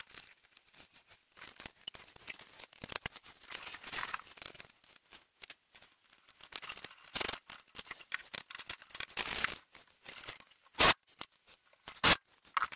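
Irregular small clicks, rattles and rustling of hands handling cables and mega fuse holders at lithium battery terminals, with two sharp knocks near the end.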